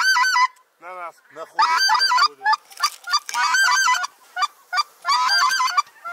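Geese honking: quick repeated honks, several overlapping, in a few bursts with short pauses between.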